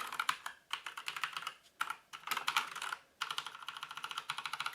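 Rapid keystrokes on a Havit HV-KB389L mechanical keyboard with Kailh Brown switches: many keys pressed in quick runs, with a few short pauses between runs.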